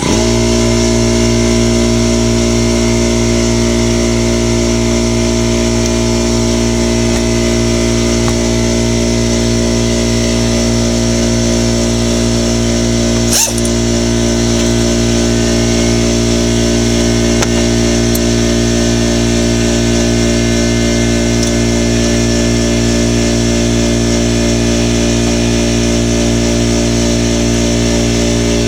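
Electric air compressor switching on and running steadily, a loud motor drone, with one sharp click about halfway through.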